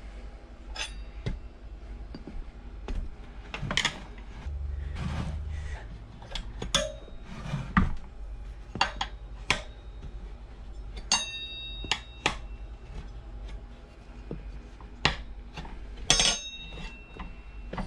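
Steel tire irons clinking and knocking against a motorcycle wheel rim while levering the tire, a dozen or so sharp metallic clinks with irregular spacing. Two of them, about eleven and sixteen seconds in, ring briefly.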